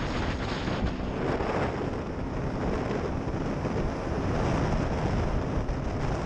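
Wind buffeting the microphone of a moving motorcycle at road speed, with the bike's engine running steadily underneath as a faint drone.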